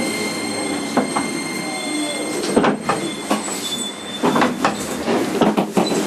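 Inside a JR East 205 series 5000-subseries electric train motor car while it runs: steady wheel-and-rail rumble with faint steady high tones, and sharp clacks and knocks from the wheels, more of them in the second half.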